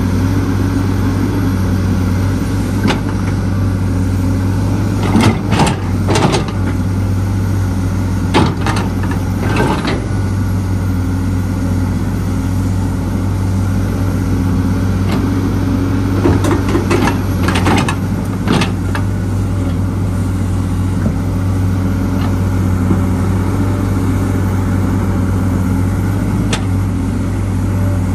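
Excavator diesel engine running steadily, with intermittent metallic clanks and knocks from the bucket and material several times.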